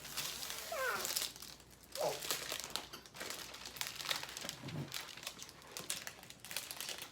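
Plastic and paper toy packaging crinkling and rustling in irregular bursts as a Barbie box is handled and opened.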